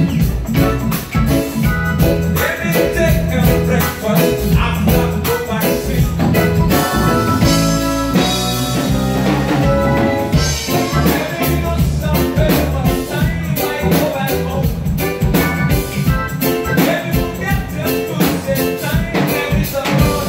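A live band playing with a steady beat: drum kit, electric guitar and keyboard.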